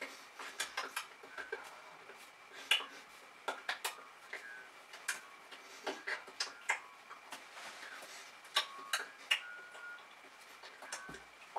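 Irregular light clicks and taps from a person signing: hands meeting and brushing, and lip and mouth smacks as the signs are mouthed, several a second at uneven spacing.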